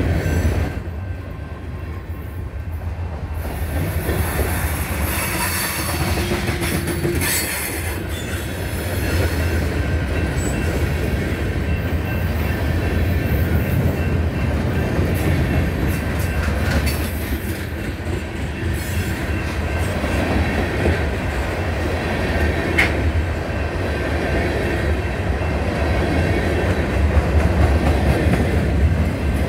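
Freight cars of a CSX mixed freight rolling past close by: a steady rumble and clatter of steel wheels on rail, with faint wheel squeal on the curve.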